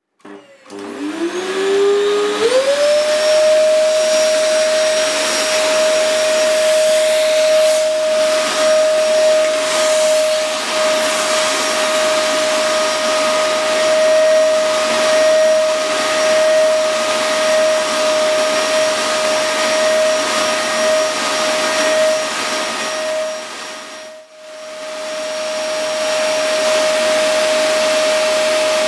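Vacuum cleaner switched on, its motor whine rising over about two seconds and then running steady while the hose nozzle is worked over a cat's fur. Near the end the sound dips sharply for a moment and builds back up.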